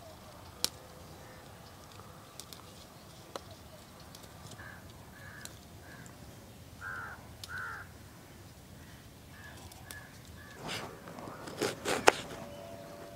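A bird giving short repeated calls in small groups from about four and a half seconds in until about ten seconds. Near the end, a knife chops small onions on a cutting board: a few sharp knocks, one of them the loudest sound here.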